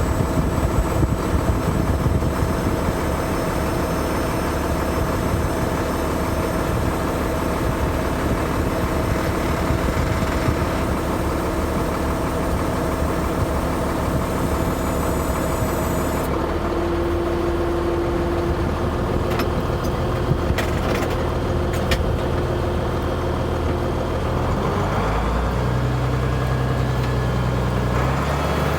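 International Harvester tractor engine running steadily while pulling a field cultivator through the soil. About halfway through the sound changes abruptly, the high hiss dropping away, and a few sharp clicks follow.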